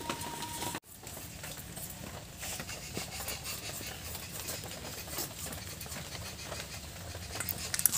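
A potato being peeled against the upright blade of a boti: faint, irregular scraping and small clicks as the skin is shaved off, a little stronger near the end.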